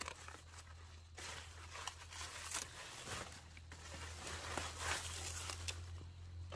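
Irregular rustling and crackling with many sharp snaps, like material being crumpled or torn, over a steady low hum.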